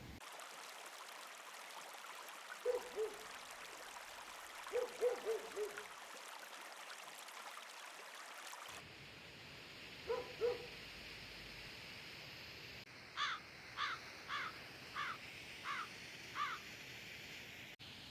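Bird calls over a steady background hiss: a few short, low hoot-like notes in pairs and small groups in the first half, then a run of six short, falling, higher-pitched calls spaced a little over half a second apart near the end.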